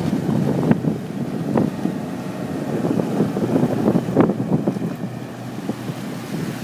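Twin 150 hp Yamaha four-stroke outboards on an aluminium landing craft running at speed as the boat passes and pulls away, heavily buffeted by gusts of wind on the microphone.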